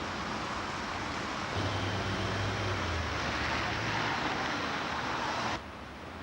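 Road traffic noise with a steady hiss. A vehicle's low engine hum passes through the middle. The noise drops abruptly about five and a half seconds in.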